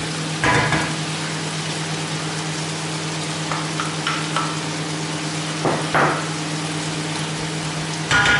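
Chorizo, bacon and frozen courgette sizzling in a non-stick wok over high heat, with a steady low hum underneath. A wooden spatula knocks against the pan a few times: about half a second in, around six seconds in, and near the end.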